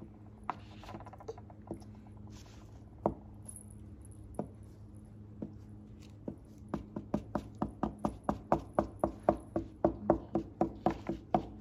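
Felt-tip marker tips tapping on paper towel against a table to make dots: a few scattered taps, then from about seven seconds in a quick steady run of taps, about four a second.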